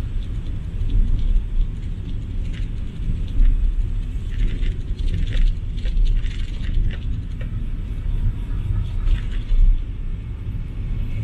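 Low engine and road rumble heard inside a car's cabin as it drives slowly through traffic, with scattered light rattles and clicks.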